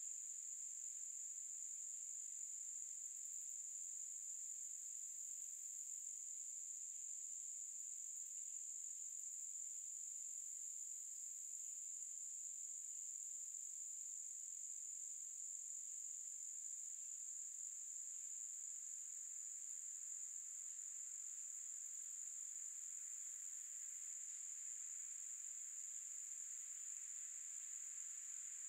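A steady, high-pitched insect chorus making one unbroken shrill note.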